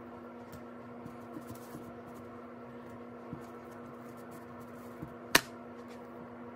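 Quiet handling of cooked chicken being torn apart by hand, a few faint soft ticks, over a steady low hum. One sharp click stands out about five seconds in.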